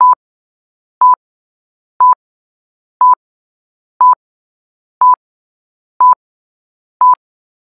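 Countdown timer beeping: short, high electronic beeps, one each second, eight in all, with silence between them.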